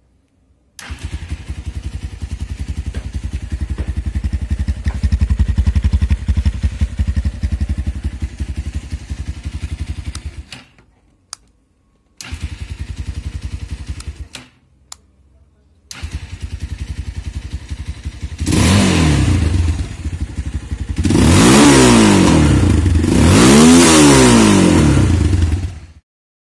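Motorcycle engine started and idling with an even pulsing beat. It cuts out twice and is started again, then is revved up and down twice and shut off suddenly near the end.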